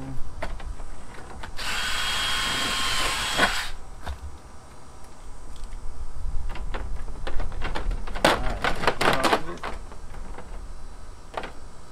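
A power drill runs for about two seconds, a couple of seconds in, while the door frame of an aluminium travel trailer is being pried with a crowbar. Sharp metal clicks and knocks follow, loudest in a cluster a little past the middle.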